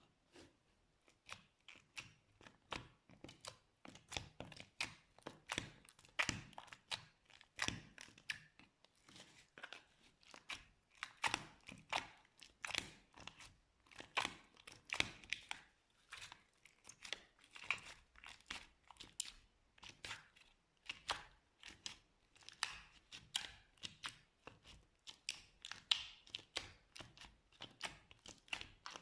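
Slime being squished and pulled by hand: an irregular run of sticky crackles and pops, several a second.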